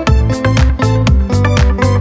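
Background dance music with a steady beat and a pulsing bass line.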